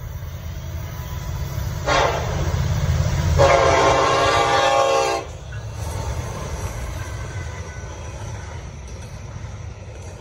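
Nathan K5LLA five-chime horn on Norfolk Southern SD70ACE 1219, sounding for a grade crossing. It starts about two seconds in, gets louder about a second and a half later, and cuts off sharply just after five seconds. Under it and afterwards, the locomotive's diesel engine and the double-stack container cars rumble steadily past at close range.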